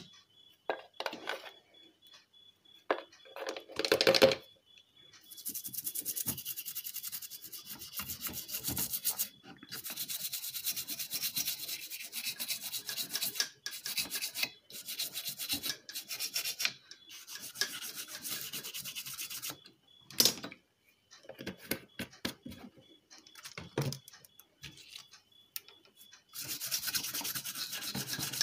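A brush scrubbing the solder side of an inverter's circuit board to clean off soldering flux, in bouts of quick rasping strokes with short pauses. A few knocks and handling sounds come in the first few seconds.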